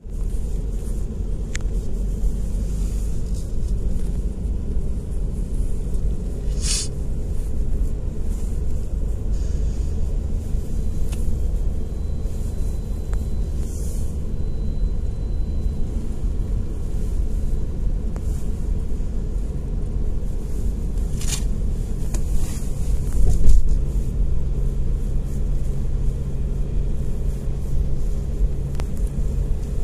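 Car driving at road speed, heard from inside the cabin: a steady low rumble of tyres and engine. Two short hisses break in, and there is one louder bump a little past two-thirds of the way.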